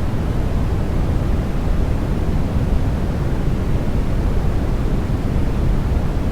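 Steady sleep noise for babies: an even, unbroken rushing hiss with no pattern or change, heaviest in the bass and thinning out toward the highs.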